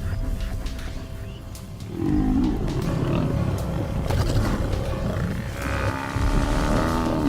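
Lions growling and snarling in two bouts, one about two seconds in and another near the end, over background music.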